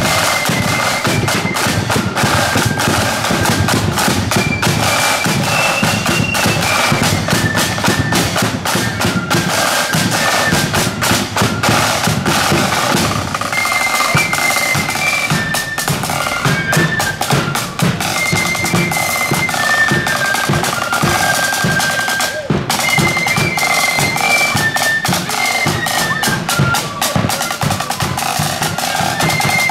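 Marching flute band playing a tune: a high flute melody over rapid side-drum patterns and bass-drum beats.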